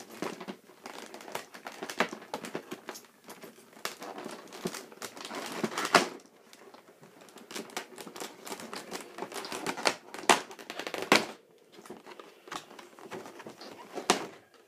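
Plastic toy packaging being handled: irregular crinkling with sharp clicks, the loudest about six and ten seconds in, as action figures are worked out of it.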